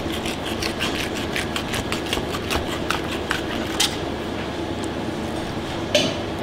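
Knife blade scraping and sawing against a cutting board in quick, regular strokes, about five or six a second, as plaice fillets are skinned; the strokes stop a little past halfway, and there is one sharp knock near the end. A steady hum runs underneath.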